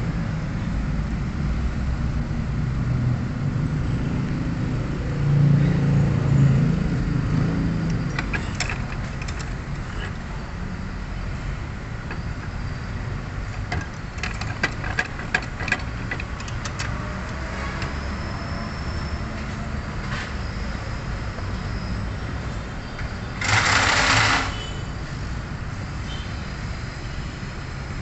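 Groups of sharp hammer taps, a part being driven further into a steering rack housing, over a steady low rumble of outdoor traffic. Near the end, a loud hiss lasting about a second.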